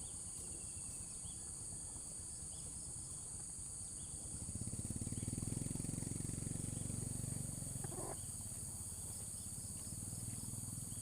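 A steady, high-pitched chorus of insects shrilling, with a low rumble that swells about four seconds in and then eases off.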